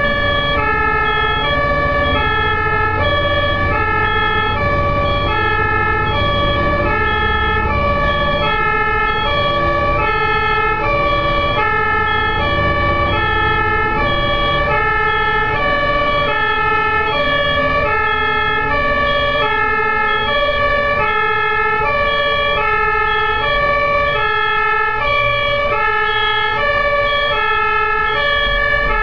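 Ambulance siren sounding a steady two-tone hi-lo pattern, switching between a high and a low note about every half second, over the low rumble of road traffic.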